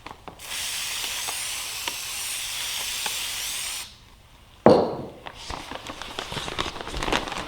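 Aerosol can of spray adhesive spraying in one steady hiss for about three and a half seconds, coating the cut edge of a paper shop vac filter bag. About a second after it stops there is a sudden loud knock, then paper rustling and crinkling.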